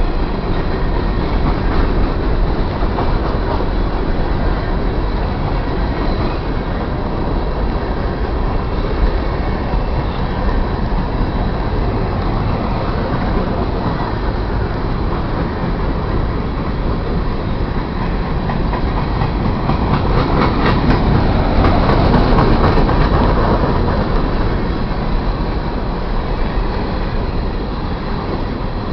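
BNSF freight train rolling past at close range: a continuous rumble of wheels on rail. It grows louder, with sharp clicking of wheels over the rails, about twenty seconds in.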